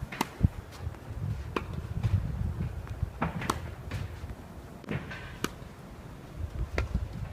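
Tennis rally: sharp pops of balls struck by rackets and bouncing on the court, a hit every second or two, over a steady low rumble of strong wind on the microphone.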